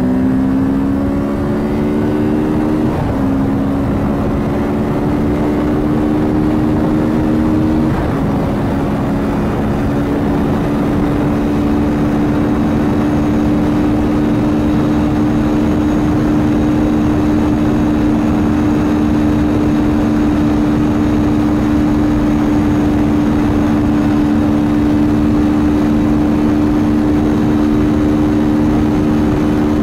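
Kawasaki Z650RS's 649 cc parallel-twin engine under hard acceleration, heard from on the bike. The revs climb and drop suddenly with upshifts about three and eight seconds in, then hold a high, slowly rising note in top gear, with steady wind rush.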